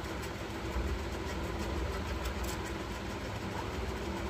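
A steady low mechanical hum of background machinery, with a few faint light clicks.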